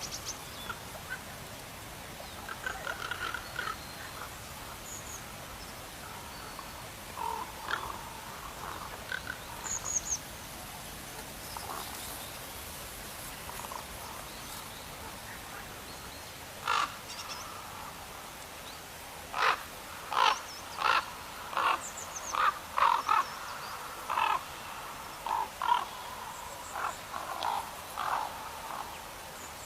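Wild birds calling: scattered faint chirps, then about a third of the way from the end a run of around eight short, loud calls spaced under a second apart.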